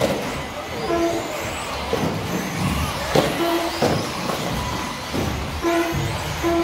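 Electric 1/10-scale RC off-road buggies racing on an indoor carpet track: motor whine rising and falling and tyre noise, with a couple of sharp knocks about three to four seconds in as cars land or hit the track borders. Short, repeated beeps sound through it.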